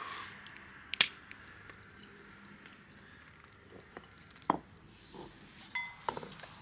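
Wire nippers snapping pieces off a cured butternut (white walnut) shell: a sharp crack about a second in and another a little after four seconds, with small ticks of shell between.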